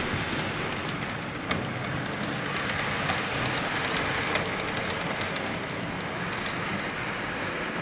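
Model Glacier Express train running past on its narrow-gauge track: a steady rushing rolling noise with scattered sharp clicks.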